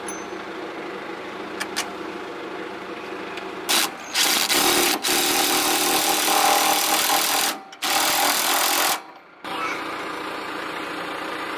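Pneumatic impact wrench running in several bursts over about five seconds, starting about four seconds in, over a steady mechanical hum.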